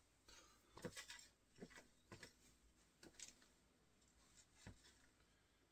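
Faint footsteps of Asics Gel-Kayano 14 sneakers shuffling and stepping on a rug and wooden floor: a handful of soft, irregular taps and scuffs.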